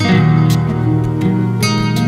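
Instrumental background music: plucked guitar-like strings over sustained low notes, with a new chord striking at the start and a few sharp percussive hits.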